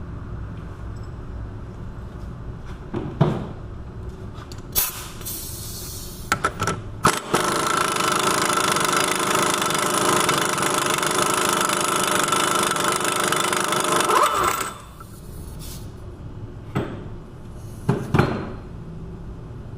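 Impact wrench running for about seven seconds, spinning the 34 mm CV axle nut off a front hub, with a few sharp metal knocks before and after as the socket goes on and comes off.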